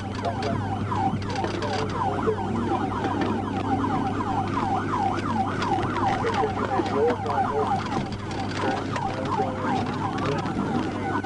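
Police car siren on yelp: a fast rising-and-falling tone repeating about three to four times a second, going over to a slower rising sweep near the end, over the steady hum of the cruiser in pursuit.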